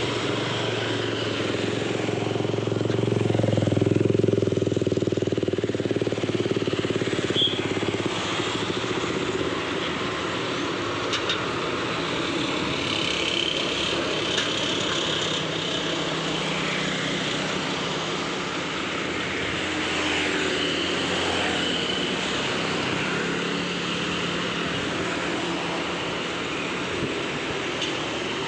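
Intercity bus engine running as the bus swings through a U-turn close by, loudest about four seconds in, followed by steady road traffic.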